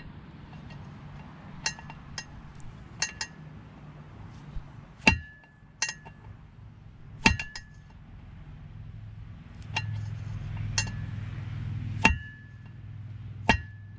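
About a dozen irregular, sharp metallic taps, each with a short ringing note, the loudest about five seconds in: a steel screwdriver being knocked against the tab washer on a MerCruiser sterndrive propeller shaft to fold its locking tab down over the prop nut.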